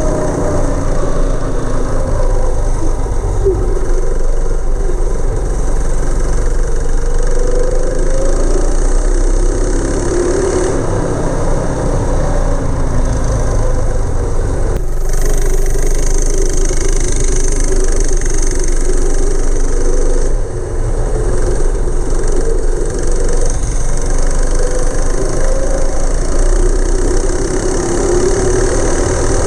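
Go-kart's 212cc single-cylinder engine with a Stage 1 kit running, its pitch rising and falling with the throttle, with an abrupt shift about halfway through.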